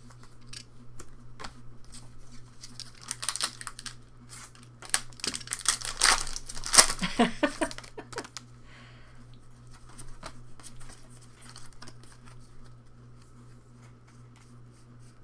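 Foil Pokémon booster pack torn open and its wrapper crinkled, loudest in the middle, with lighter rustling and clicks of cards being handled before and after.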